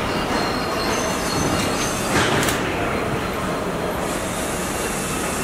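Car assembly plant floor noise: a steady mechanical din from line machinery, with thin high whines running through it and a brief louder burst about two seconds in.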